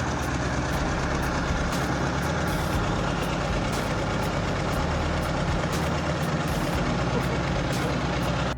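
A large engine running steadily at an even level, with a constant low hum and no breaks.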